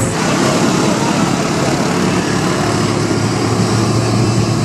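Vehicle engines running, a loud steady din with a low hum underneath.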